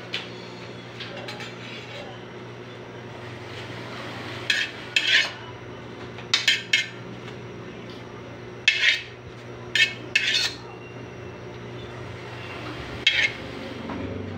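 Metal ladle scraping and clinking against an empty aluminium wok in short strokes, in several small groups, over a steady low hum.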